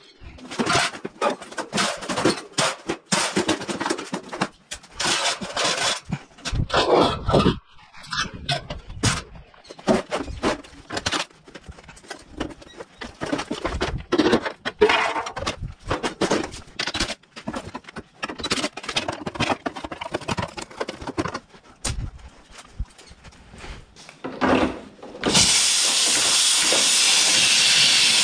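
Sheet-metal panels, grille and coil of an air-conditioner condenser unit clanking and scraping as they are pulled apart. About 25 seconds in, a sudden loud, steady hiss of pressurized gas escaping from the unit's copper line as it is cut with bolt cutters.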